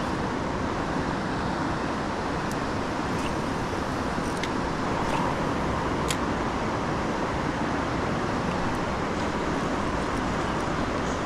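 Steady rush of river water running over a rocky riffle, with a few faint ticks now and then.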